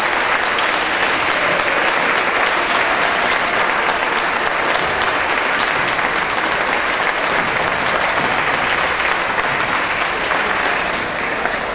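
Audience in the gym applauding steadily, a dense patter of clapping that eases a little near the end.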